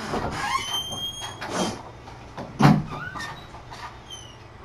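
Rustling and light knocks from kittens playing around a fabric tent and toys on the carpet, with one louder thump a little past halfway.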